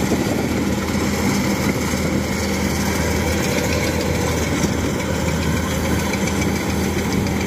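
Thai-built 105 rice combine harvester's engine running steadily under load while it cuts and threshes, a constant low hum with a steady tone over the dense clatter of the machine.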